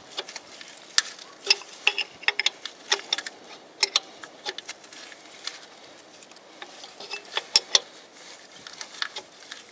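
Irregular sharp metallic clicks and clinks of hand tools working a fitting on the truck's engine, in small clusters with short gaps between.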